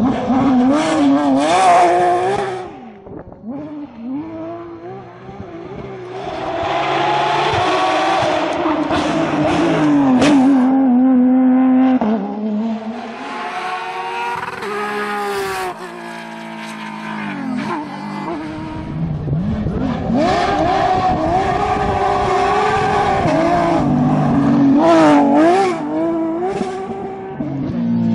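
Porsche 911 rally cars' flat-six engines at full throttle, several cars passing one after another. The engine note climbs and drops repeatedly through gear changes, swelling loud as each car goes by and falling away between them.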